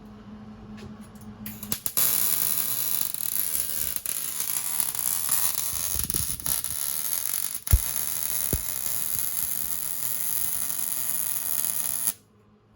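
Welding arc, likely MIG, running in one continuous bead for about ten seconds: a steady crackling hiss that starts and stops abruptly, with a sharp knock partway through.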